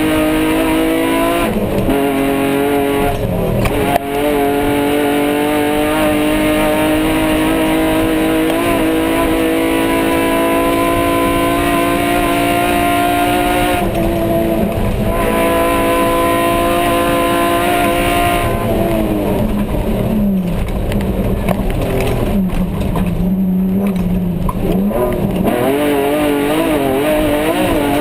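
Off-road race car's engine heard from inside the cockpit, running hard at high revs over a steady rumble of the dirt track. Its pitch drops suddenly with quick upshifts about one and a half and three seconds in, climbs steadily for the next ten seconds, then falls to a lower pitch about eighteen seconds in and wavers up and down near the end.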